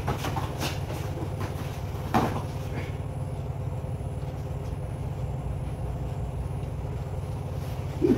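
A person thrown down onto interlocking foam floor mats lands with a single thud about two seconds in, over a steady low rumble.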